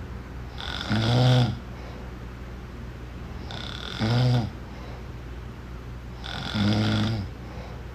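Snoring: three low snores about three seconds apart, each lasting about a second, with quieter breathing between them.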